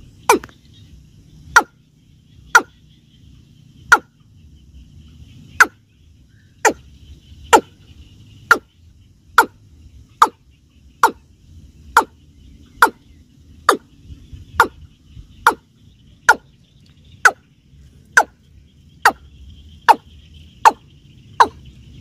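Watercock (Gallicrex cinerea) giving its repeated 'keb' call: short sharp notes, each dropping in pitch, about one a second and coming slightly faster toward the end.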